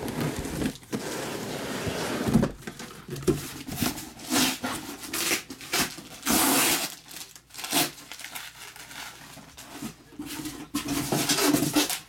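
Cardboard case and shrink-wrapped card boxes being handled: irregular bursts of rustling, crinkling and tearing of cardboard and plastic wrap, with a few light knocks. The longest burst comes a little past halfway.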